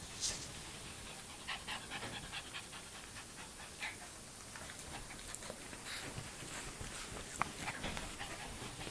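A Yorkshire terrier panting in a quick run of short breaths, with one sharp click about three-quarters of the way through.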